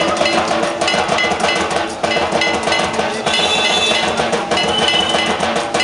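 Fast drumming with a ringing metal gong beat, played back through an electronic moving statue's sound unit as its drummer figure moves.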